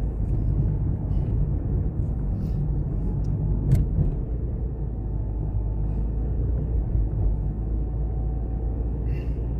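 Steady low rumble of a car on the move, heard from inside the cabin, with a sharp click a little under four seconds in.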